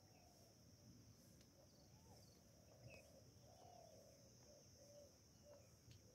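Near silence: faint outdoor ambience with a steady high-pitched insect drone and faint, short bird calls scattered throughout.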